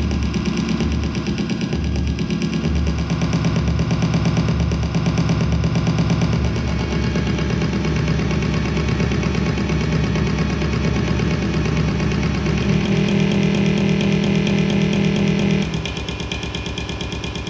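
Loud electronic soundtrack of a live audiovisual performance: a dense, grainy drone over a low bass that pulses in uneven blocks. About two-thirds of the way through the bass pulse stops and the drone shifts to a brighter chord, then eases slightly near the end.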